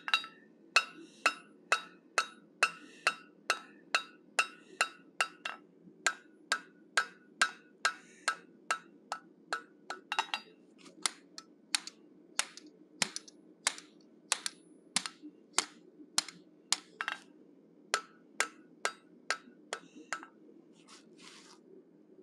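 Hand hammer striking a steel bar on an anvil in a steady run of blows, about two a second, each with a short metallic ring, crowning the top of a forged bear-head snout. The blows stop near the end, followed by a couple of light taps.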